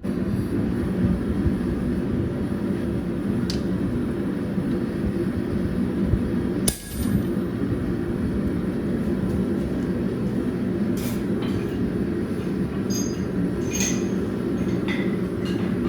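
A steady low mechanical roar, with a few light metallic clinks and ticks over it; it drops out for a moment about seven seconds in, with a sharp click.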